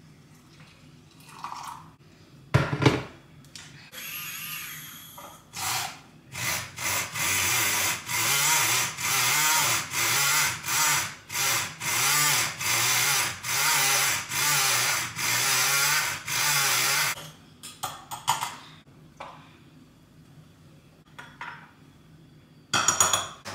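Handheld battery-powered milk frother whisking matcha in a glass, buzzing loudly in regular surges a little more than once a second for about ten seconds. A single sharp knock comes a few seconds before it starts.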